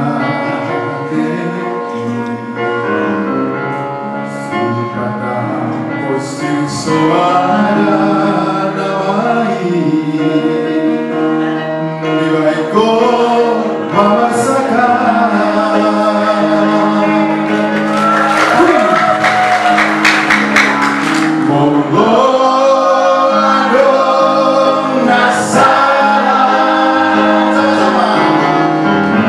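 A man singing solo into a microphone, his voice amplified through a PA, over steady held keyboard chords; the singing grows louder about halfway through.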